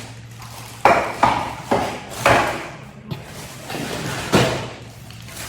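Cordless vacuum parts and their packaging being handled and set down: about five sharp knocks and clatters, with rustling between.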